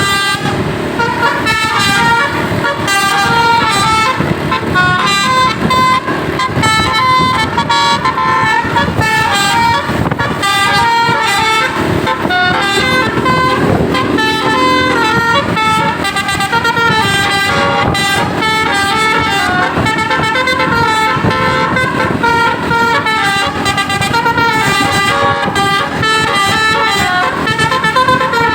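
Basuri telolet horns on buses playing fast melodic tunes, with horn notes stepping up and down several times a second. The tunes follow on from one another without a break.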